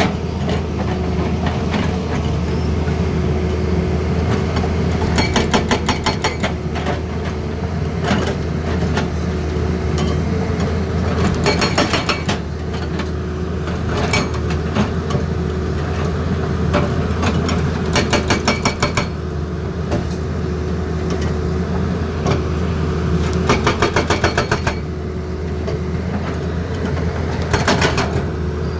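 Tata Hitachi excavator's diesel engine running steadily, with about six short bursts of rapid hammering from its hydraulic breaker.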